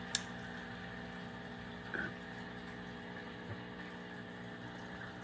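Steady hum of aquarium equipment running, an air pump and filter, with faint bubbling from the air curtain. A short click sounds just after the start.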